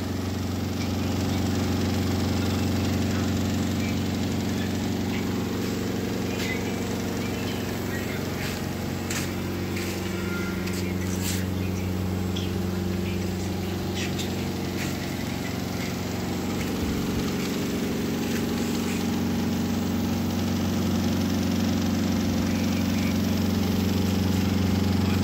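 Steady low hum and drone of machinery running at a steam boiler's furnace, with a few scattered clicks and knocks about a third of the way through.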